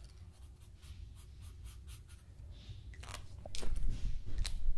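A marker scratching across paper in short strokes as a section is coloured in, then a few louder knocks and bumps near the end.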